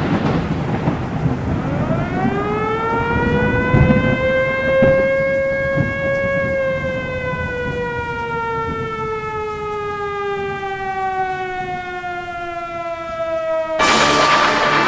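Civil defense warning siren winding up from about two seconds in, peaking, then slowly sliding down in pitch, over a haze of rain and thunder. Music cuts in abruptly near the end.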